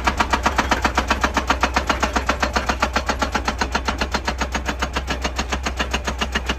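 Hydraulic breaker hammer on an excavator pounding rock in a rapid, even run of blows, over the machine's steady engine. The hammering cuts off near the end.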